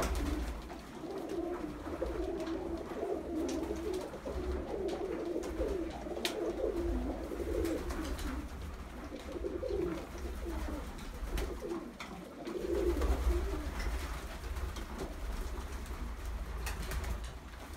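A flock of domestic pigeons cooing in their loft: many low coos overlapping without pause, with a few short sharp clicks among them.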